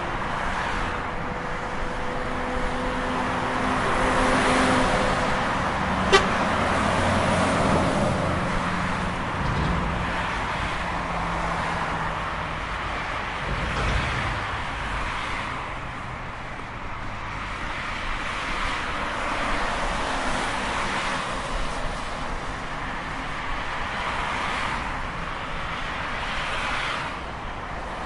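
Highway traffic: a steady wash of tyre and engine noise that swells and fades as vehicles pass, with a sharp click about six seconds in.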